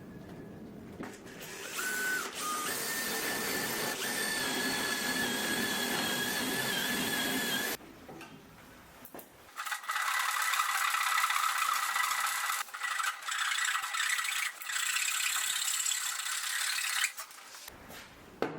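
Handheld electric power tool running with a steady high whine over a hiss, cutting into wood in two runs of several seconds each with a short pause between.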